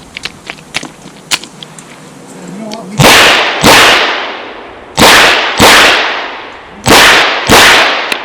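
Chiappa Rhino .38 Special revolver fired six times in three quick pairs, each pair a double-tap about half a second apart, with about two seconds between pairs. Each shot is a very loud crack with a long ringing tail.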